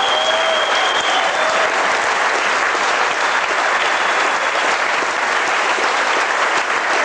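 Audience applauding steadily in a large hall, dense clapping throughout.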